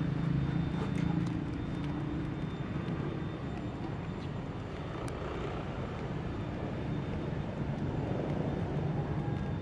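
A steady low mechanical rumble, like a distant engine.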